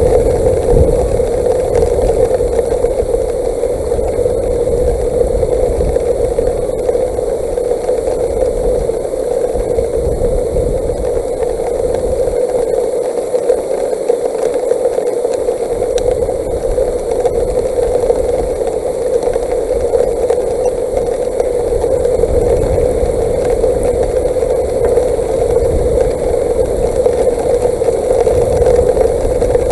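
Hail and wind striking an outdoor nest-camera microphone: a loud, steady hiss with a gusty low rumble that eases briefly around the middle, and a few sharp clicks of hailstones hitting.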